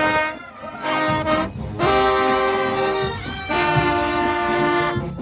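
A school marching band's brass section playing long held notes that change pitch every second or so, with drums beneath.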